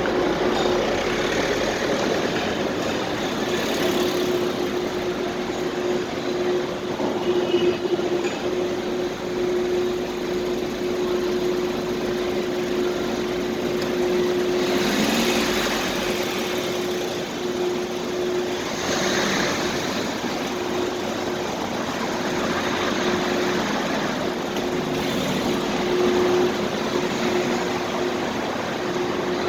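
Parking lot ambience: a steady hum with a constant tone over a wash of noise, with vehicles moving through it and swelling louder a few times in the second half.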